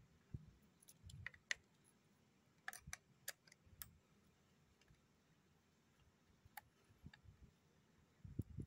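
Faint, scattered clicks and ticks of a hex key turning a socket-head bolt that holds a painted wooden rifle stock, with the metal parts being handled; otherwise near silence.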